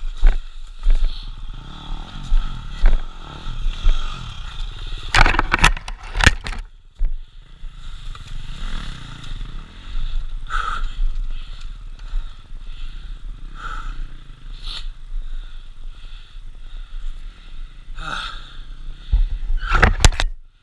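Dirt bike engine running on a rocky trail, the pitch rising and falling with the throttle. Loud clattering knocks and scrapes come about five seconds in and again near the end as the bike goes over rocks.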